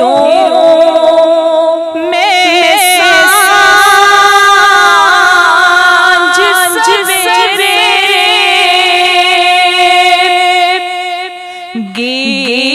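A woman singing a naat, an Urdu devotional song, her wavering melodic line carried over a steady held tone underneath. The singing drops quieter just before the end, and a new phrase begins.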